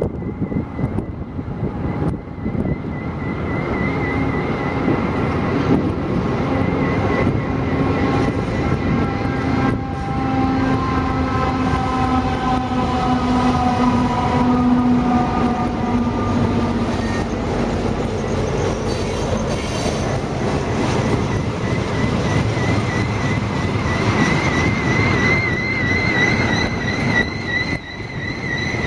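Union Pacific diesel freight locomotives passing at close range, their engines running with a whine that falls steadily in pitch over several seconds. A long train of covered hopper cars then rolls by, its wheels squealing on the rails in a wavering high tone. Gusty wind buffets the microphone.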